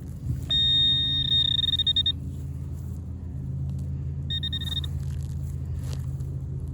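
Metal detector sounding its high-pitched target tone over a buried coin: one long beep of about a second and a half, then a short one a few seconds later. A steady low rumble runs underneath.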